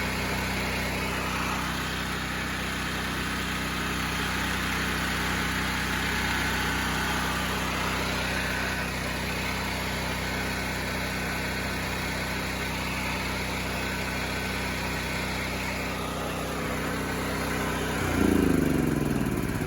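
Small portable generator's petrol engine running steadily at governed speed after a carburettor clean and a pilot jet enlarged to 18 thousandths, turning slightly fast at 63 Hz output. About 18 seconds in it gets briefly louder and then winds down with falling pitch.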